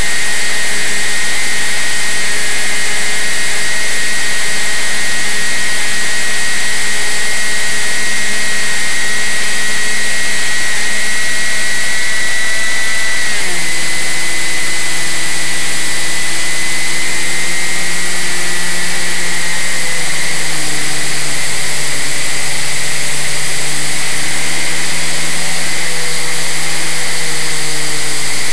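Propeller motor of a small aircraft running steadily under a loud wind hiss, with a high whine above the hum. About halfway through, its pitch drops abruptly, then wavers up and down.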